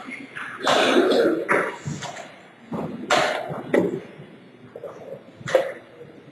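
A person coughing several times in short, harsh bursts, the loudest about a second in.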